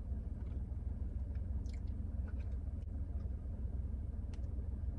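Steady low hum of a car idling, heard from inside the cabin, with faint chewing and a few small clicks on top.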